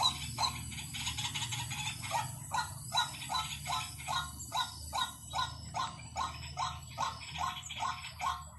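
White-breasted waterhen calling: a steady run of short, harsh 'kwak' notes, about two to three a second, of the kind played as a decoy call to lure waterhens. A faint low hum runs underneath.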